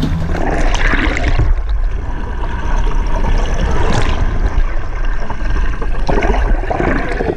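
Water heard from underwater: a muffled, continuous rush and gurgle of water streaming past, over a strong low rumble.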